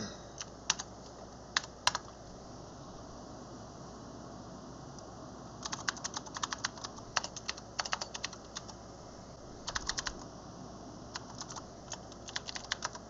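Typing on a computer keyboard: a few separate keystrokes in the first two seconds, a pause, then quick runs of keystrokes from about halfway through.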